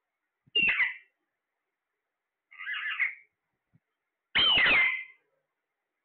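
Alexandrine parakeets calling: three harsh squawks about two seconds apart, the middle one quieter and the last one the longest.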